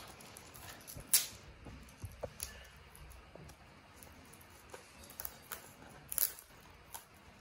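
Hands handling a rubber balloon and a roll of sticky tape: scattered rustles and light clicks, the sharpest about a second in.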